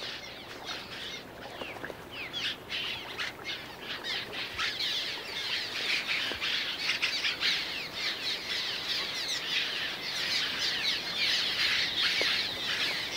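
A flock of cliff swallows calling together: a dense chatter of many short, squeaky notes that grows busier and louder about four seconds in.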